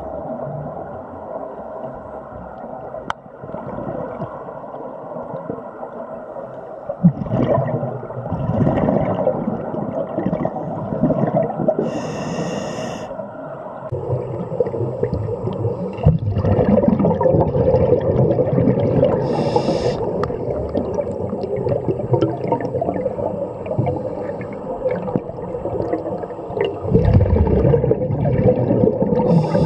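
Scuba breathing recorded underwater: a steady bubbling rumble of exhaled bubbles from a regulator, with short hissing inhalations three times, about twelve seconds in, near twenty seconds in and near the end.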